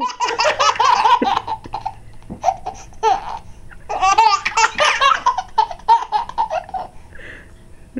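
Twin babies laughing in fits of giggles, one bout in the first couple of seconds and another about four seconds in, with quieter chuckles between.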